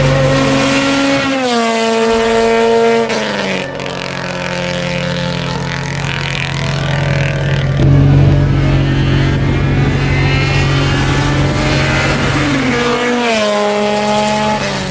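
Four-cylinder Honda car engine under way, shifting up through the gears: its pitch drops in two steps in the first few seconds, holds fairly steady, then drops again near the end.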